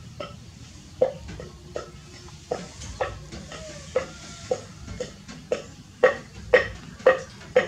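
Baby monkey chewing watermelon with wet, smacking bites, about two a second, a little louder near the end.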